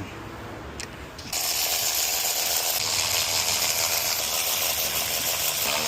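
Ratchet wrench clicking rapidly and without a break, starting suddenly about a second in, as it backs an old spark plug out of the cylinder head.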